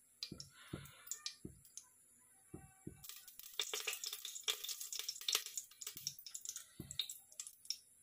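Mustard oil being spooned into a pressure cooker on the gas, with soft low knocks and drips. From about three seconds in there are a few seconds of dense crackling as the oil heats, thinning out towards the end.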